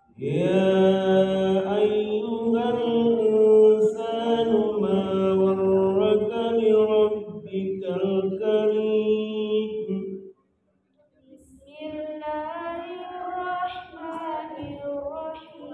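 A woman reciting the Qur'an in the melodic tilawah style. She holds one long, ornamented phrase for about ten seconds, breaks off for a moment, then starts the next phrase.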